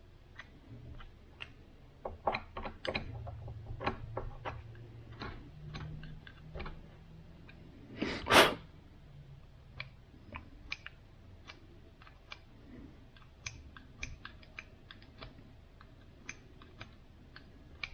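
Scattered small clicks and taps of hand-handling throttle actuator gears and a tool while cleaning excess anti-seize off them, with one louder brief rushing scrape about eight seconds in.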